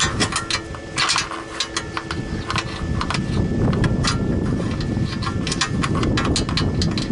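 Ratchet wrench clicking in short quick runs while the oil pan bolts are being undone, over a steady low rumble.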